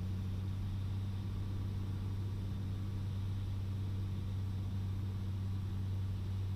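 Piper Cherokee Six's six-cylinder Lycoming engine and propeller droning steadily in the cabin on short final approach to landing.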